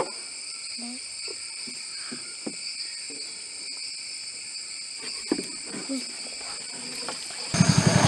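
Steady chorus of rainforest insects, several high shrill tones held without a break, with scattered soft knocks and splashes of a wooden paddle against the canoe and water. Near the end a small engine suddenly comes in, running with a low rapid chug.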